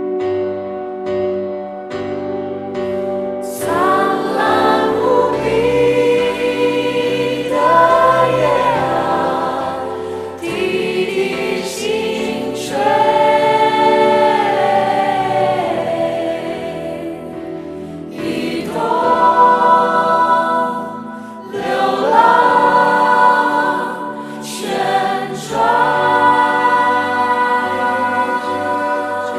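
Stage-musical cast singing a Mandarin ballad together with live accompaniment. The accompaniment plays alone for about the first three seconds, then the voices come in, holding long notes with vibrato.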